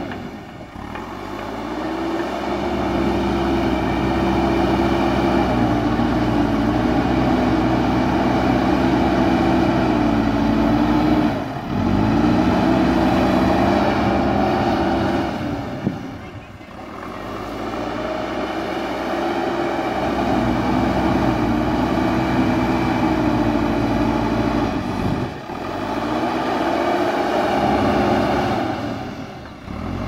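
JCB backhoe loader's diesel engine working under load while the front bucket levels soil. The engine revs up and holds steady, and drops away briefly three times before climbing back.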